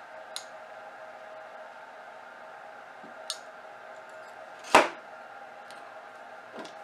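A hand tool cutting away a damaged section of a circuit board trace: a few light clicks, then one sharp snap a little under five seconds in. A faint steady hum sits underneath.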